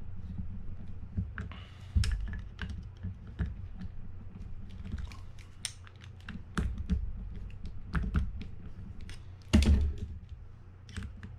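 Small screwdriver and metal fishing-reel parts clicking and tapping irregularly while screws are backed out of the reel's bottom drag plate, with a louder knock about two seconds in and a heavier thump near the end.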